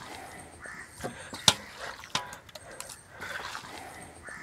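Marinated beef chunks dropped by hand into an aluminium pressure cooker: soft wet plops with a few sharp metallic clinks, the sharpest about a second and a half in.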